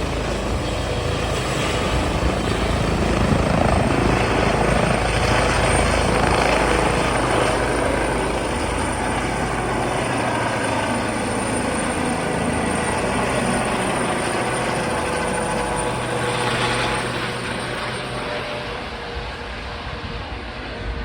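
Rescue helicopter taking off, its turbine engines and rotor running loud and steady. It is loudest a few seconds in and fades toward the end.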